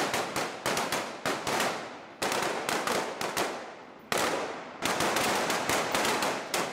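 Several rifles firing together on a range: rapid, irregular, overlapping shots, each with a short fading tail, in fresh strings about two, four and five seconds in.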